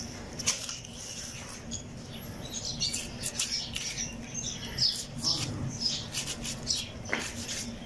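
A knife cutting and scraping along the hide of a slaughtered cow's leg, among many short, high chirping sounds and over a steady low hum.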